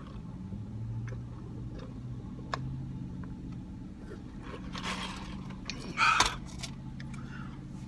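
A steady low mechanical hum, with a few light clicks and two short rustling noises about five and six seconds in.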